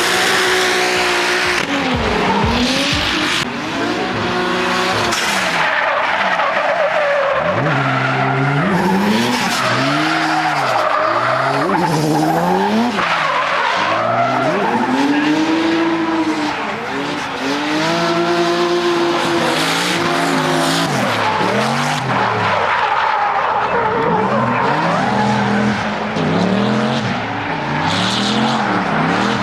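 Nissan 350Z drift car at full throttle, the engine revving up and falling back again and again as the car is held sideways, with the tyres squealing and skidding throughout.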